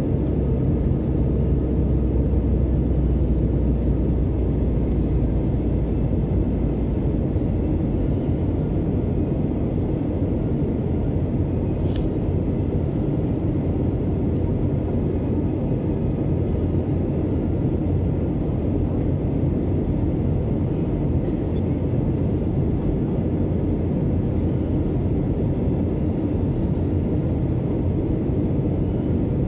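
Steady cabin noise of an Airbus airliner in flight, heard from a window seat beside the engine: the engines and the airflow make a constant rush. A low hum underneath fades out about seven seconds in, and there is one faint click near the middle.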